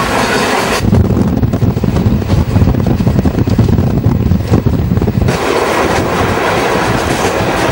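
Running noise of a moving passenger train heard at an open window. From about a second in until about five seconds, wind buffets the microphone with a heavy low rumble that covers the train, then the train noise returns.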